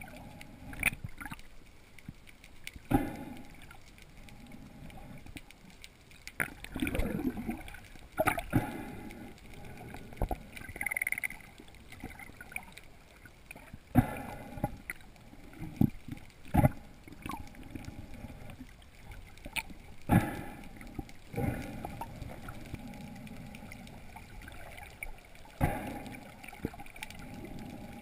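Underwater sound heard through a camera's waterproof housing: muffled sloshing and gurgling of water, broken by irregular knocks and thumps every second or two.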